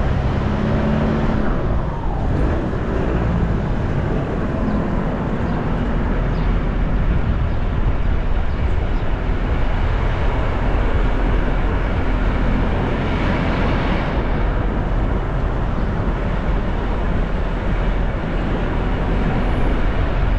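Motor vehicle on the move: steady engine and road rumble, with the engine's pitch shifting as it changes speed in the first few seconds.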